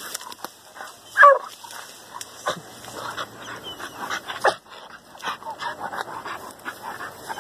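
Hunting dog giving short, excited barks and yelps, the loudest about a second in, with rustling and scuffling in the brush between them.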